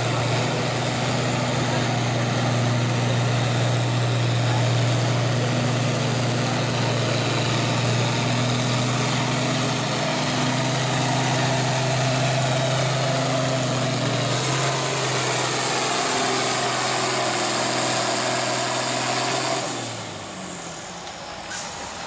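A farm tractor's engine running hard under steady load as it drags a weight-transfer sled at a held, speed-limited pace, with a high thin whine over it. The pitch steps down slightly about two-thirds of the way through, and near the end the engine drops off sharply as the pull ends, the whine sliding down with it.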